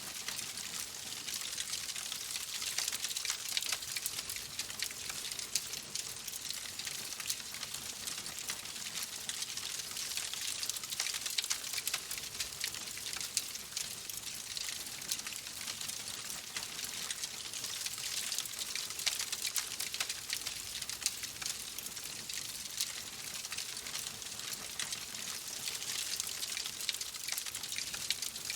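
Wood fire in a fireplace crackling steadily: many small pops and snaps over a soft hiss.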